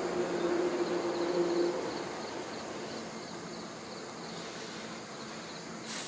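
Night crickets chirping in a faint, quick, even pulsing, over a steady low hum that stops about two seconds in. A short rush of noise comes near the end.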